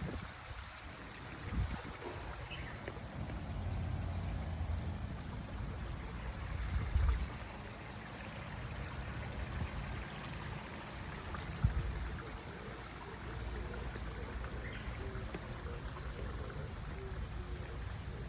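Steady rumble of nearby road traffic with faint small-bird chirps now and then, and one sharp low thump about two-thirds of the way through.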